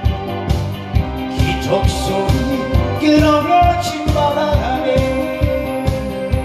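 A man singing a Korean trot song into a microphone over an amplified backing track with a steady, fast drum beat.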